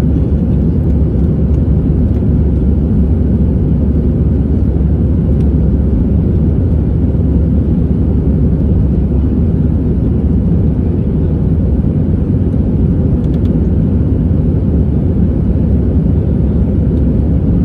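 Airbus A320 jet engines at takeoff thrust, heard inside the passenger cabin as a loud, steady, deep rumble.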